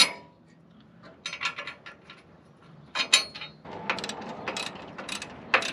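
Socket ratchet wrench clicking in several quick runs as a bolt is tightened on a steel frame brace.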